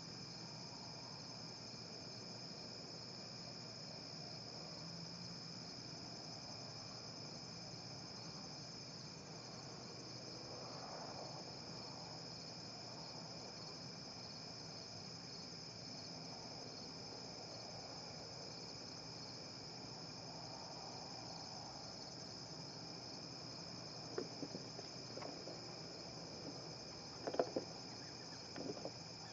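Night chorus of crickets trilling steadily and evenly. Under it are faint wavering swells of a low hum, and a few sharp clicks come near the end.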